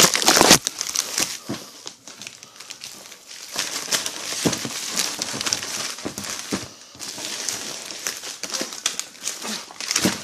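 Plastic packaging crinkling and rustling as it is handled and pulled off a boxed book, irregular and loudest in the first half second.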